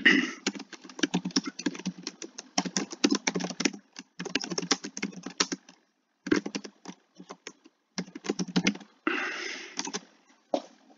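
Typing on a computer keyboard: quick runs of keystrokes broken by short pauses, the longest about halfway through.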